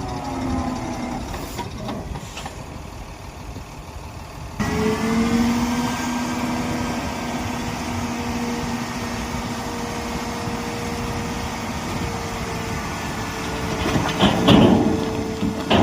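Heavy diesel construction machinery running. About four and a half seconds in, it turns abruptly louder with a steady droning hum, and near the end there are a few rough, noisy bursts.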